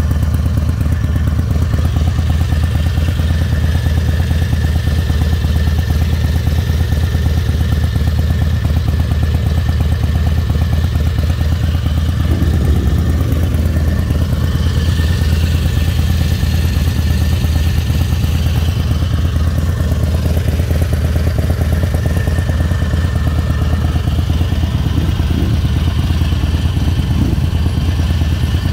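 Harley-Davidson Night Train's air-cooled V-twin engine idling steadily, with an even, rapid low pulse.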